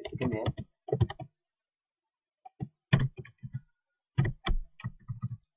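Computer keyboard keys clicking in three short runs of typing, with pauses of about a second between them.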